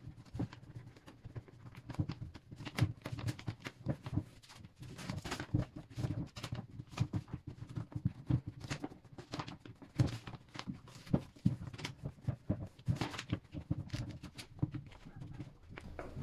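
A cloth rubbing and pressing vinyl wrap film down onto a ridged surface to push out air bubbles, with the paper backing rustling: a run of irregular soft scuffs and knocks, several a second.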